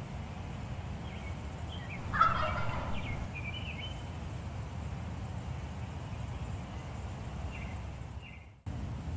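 A male wild turkey gobbles once, about two seconds in: one loud, rapid, rattling call, the tom's strutting display call in the mating season. A steady low rumble runs underneath, with a few short high bird chirps.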